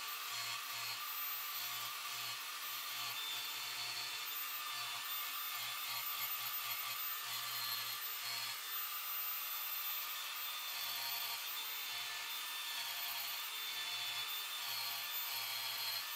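Angle grinder with a sanding disc running steadily, grinding the pane of a steel hammer head.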